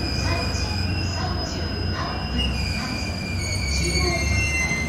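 JR E233-0 series electric train slowing into a station over a low rumble, with high steady whining tones that slowly fall in pitch as it decelerates.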